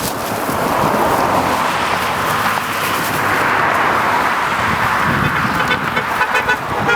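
Road traffic going past: a vehicle's tyre and engine noise swells over the first second and then stays loud and steady.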